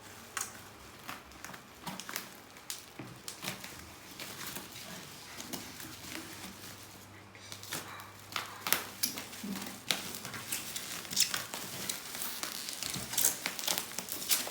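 Shipping packaging being unwrapped by hand: irregular crinkling and crackling of the wrapping, getting busier and louder about halfway through.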